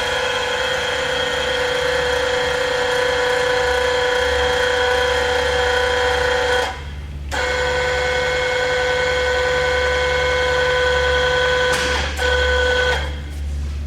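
Jet JRD-700 radial arm drill press running with a steady whine. It stops about halfway through and starts again, breaks off briefly near the end, then winds down.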